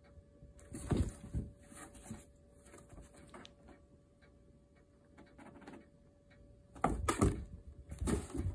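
Kittens scrambling about in a cardboard box: bursts of scratching and rustling on the cardboard about a second in, and a louder flurry near the end as they tumble about.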